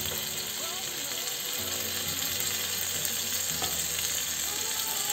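Steady sizzle of food frying in oil in a pan, with soft squelching and knocks of a plastic potato masher pressing boiled potatoes in a steel pot.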